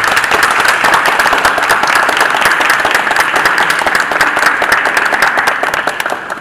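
A group of people applauding: dense, steady hand-clapping that begins to tail off near the end.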